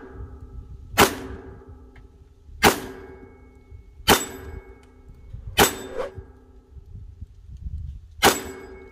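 Five revolver shots fired double-action, about a second and a half apart with a longer pause before the last, each followed by a short metallic ring from a hanging steel plate target being hit.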